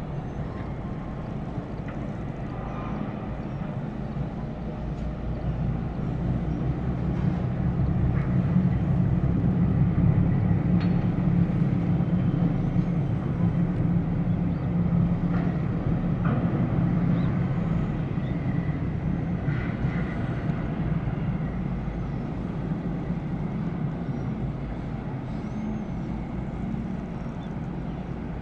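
A low, steady rumble that builds to its loudest about ten seconds in and then slowly eases off, with a few faint knocks above it.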